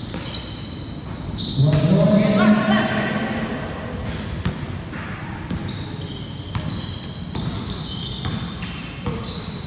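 Basketball game play: sneakers squeaking on the court and the ball bouncing, with many short high squeaks and sharp knocks. A voice shouts loudly about two seconds in.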